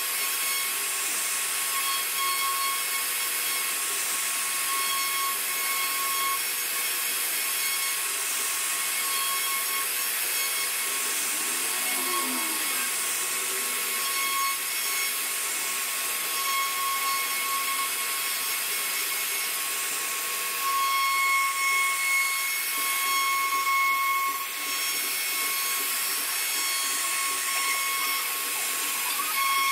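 CNC router spindle running with a steady whine as its bit carves relief into a wooden panel, over the continuous noise of the wood being cut.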